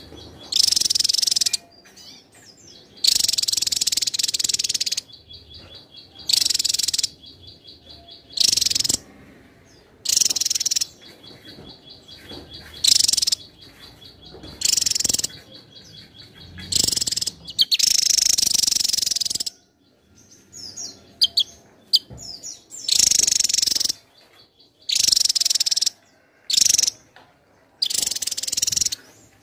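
Javan tesia singing in repeated loud bursts of high, rapid song, about a dozen phrases of half a second to two seconds each, separated by short pauses. A faint fast trill carries on in some of the gaps.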